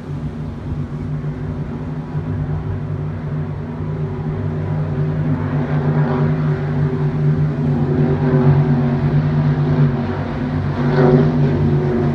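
Racing powerboat engines running at speed across the water, a steady droning hum that gradually grows louder.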